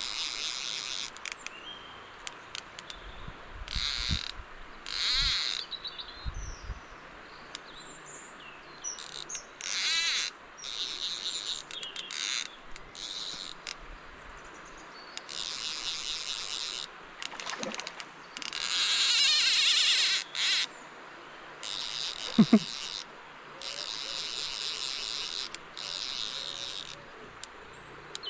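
Fly reel's ratchet buzzing in a dozen or so separate bursts, each up to about two seconds long, as line runs off and is wound back while a brown trout is played on a bent rod. One short, sharp knock about three quarters of the way through is the loudest sound.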